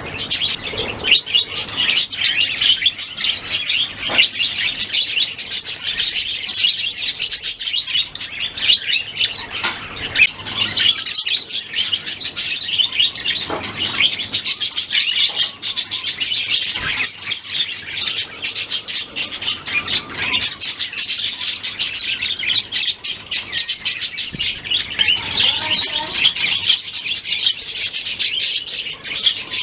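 Budgerigars chirping and chattering continuously, a dense run of quick, high chirps and warbles.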